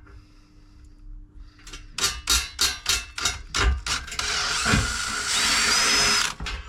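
DeWalt power drill boring a stop hole through the bronze of a cracked Zildjian cymbal to keep the crack from spreading. It comes in short bursts, then runs steadily for about two seconds with a high whine as the bit cuts the metal, and stops abruptly shortly before the end.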